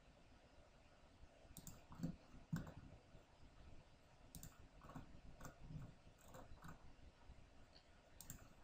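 Computer mouse clicking, about ten faint, irregularly spaced clicks over near silence.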